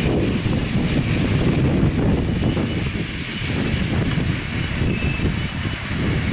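5-inch gauge live steam Duchess Class model locomotive running along the track with its driver aboard: a steady low rumble from the engine and wheels on the rails.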